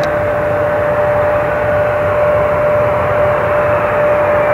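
Four Progress D-18T turbofan engines of an Antonov An-124 on final approach: a steady jet noise with one constant tone held through it.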